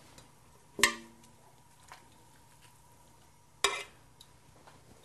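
Two sharp metallic clinks of a utensil knocking against the metal cooking pot, almost three seconds apart; the first rings briefly.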